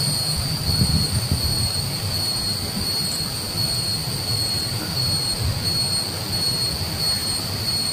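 Insects droning in one steady, unbroken high tone, over an uneven low rumble on the microphone.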